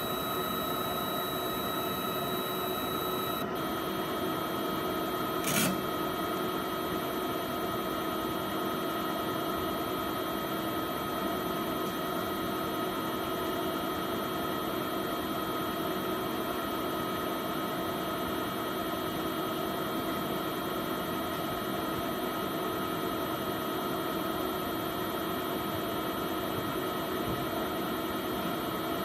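PATHFAST immunoassay analyzer running: a steady mechanical hum with several whining tones from its drive, the tones shifting about three and a half seconds in, and a single click a couple of seconds later.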